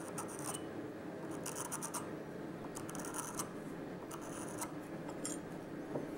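Steel scriber scratching a line along a square into layout fluid on a mild steel bar, in about five short scraping strokes roughly a second apart.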